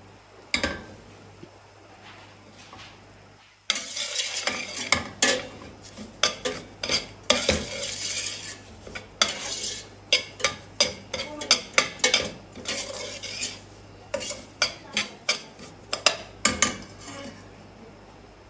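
A spoon stirring semolina roasting in ghee in a pot, scraping the bottom and clinking against the sides over and over, in quick irregular strokes. It starts about three and a half seconds in, after a couple of single knocks.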